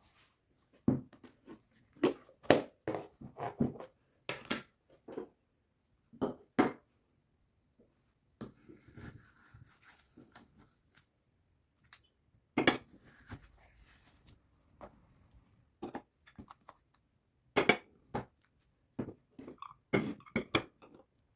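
Metal ice cream scoop scraping through frozen ice cream in a plastic tub and knocking against a glass bowl: a series of sharp clinks and knocks, with a stretch of scraping about halfway through.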